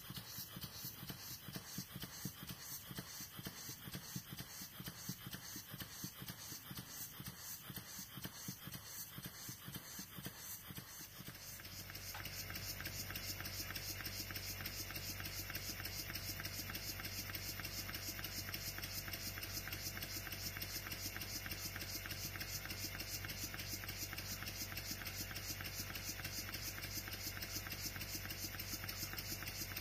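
Scratch-built single-cylinder slide-valve model steam engine running on compressed air, its exhaust puffing and its moving parts clicking in a fast, even rhythm. About a third of the way in, the sound gets a little louder and a steady low hum joins it.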